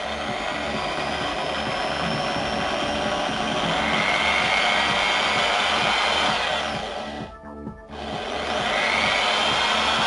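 Einhell corded electric drill running steadily as its bit bores into the eye of a coconut, with a motor whine over the noise of the cut. It stops for about half a second around seven seconds in, then starts again.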